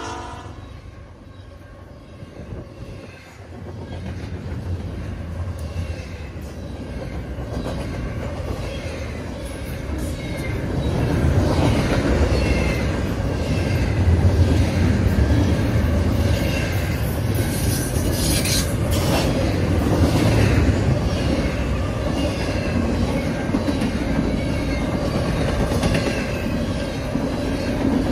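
Double-stack intermodal freight cars rolling past at track side: a steady, heavy rumble of steel wheels on rail that grows louder over the first ten seconds or so, with a few sharp clacks of wheels over rail joints.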